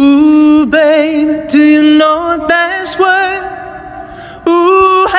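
Music: a singing voice holding long notes with vibrato, from a song laid over the video.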